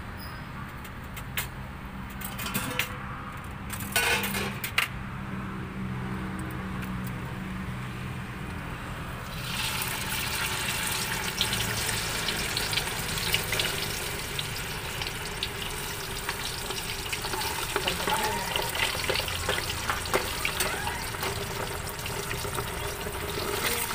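Sliced sausage deep-frying in a steel pot of hot oil, sizzling and crackling steadily from about nine seconds in. Before that, a few sharp clicks and knocks of metal tongs.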